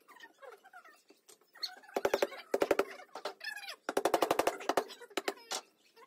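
Rapid strings of sharp knocks from pallet boards being struck while they are tapped together into a doweled tabletop joint. There are two fast bursts, about two and four seconds in, and a few single knocks after.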